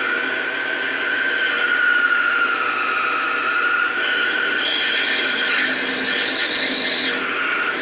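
Drill bit in a metal lathe's tailstock boring into a spinning metal bar, making a steady high squeal with a scraping rub that turns harsher about halfway through. The machinist takes the squeal to mean the drill bit is dull.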